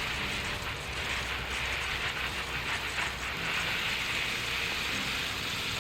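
Steady hiss of water spraying onto freshly planted soil as the seedlings are watered in.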